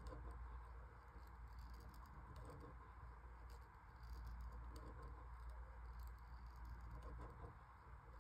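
Faint scratching and light irregular ticking of a kinetic drawing machine's pen tracing lines across paper, over a steady low hum.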